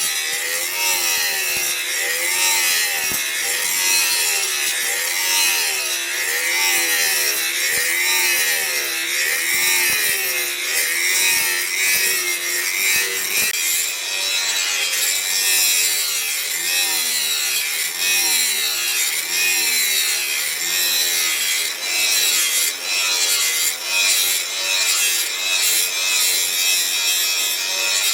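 Continuous back-and-forth rasping of a hand-worked saw-like or file-like tool, about one stroke a second.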